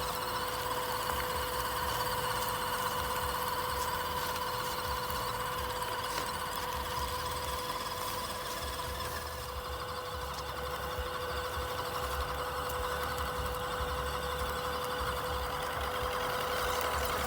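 Electric motor and gearbox of an MN78 1/12-scale RC car whining steadily, with a constant pitch.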